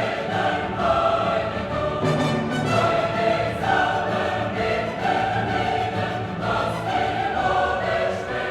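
Choral music: a choir singing long held notes that change pitch about once a second.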